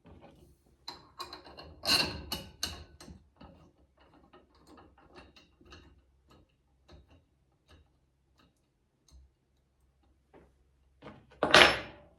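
Metal clinks, knocks and rattles of a chain grinder stand's tubing and bolts being fitted together and the bolts started by hand. A cluster of louder knocks comes about two seconds in and a single loud clank near the end.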